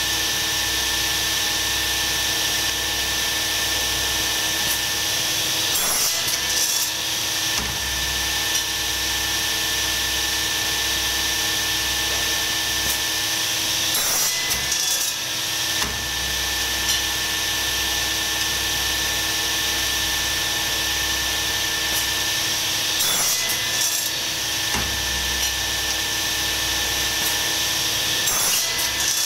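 A power machine running steadily, with a constant motor hum under a rough rubbing, grinding noise as material is worked on it. A few sharp clicks come several seconds apart.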